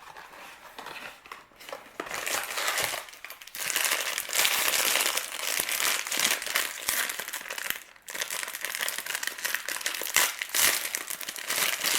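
Packaging of a toy mystery box crinkling and rustling as it is opened and unwrapped by hand, in bouts with short pauses about three and a half and eight seconds in.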